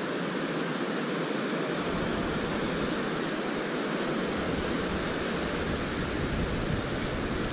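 Surf breaking on the beach: a steady, even wash of noise, with a low rumble joining about two seconds in.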